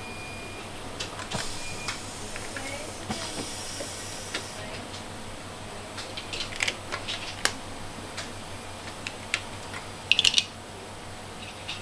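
Scattered small clicks and taps as small speaker units are set into and pulled out of a test fixture, with a quick rattle of louder clicks near the end, over a steady hum. A brief high steady tone sounds twice in the first two seconds.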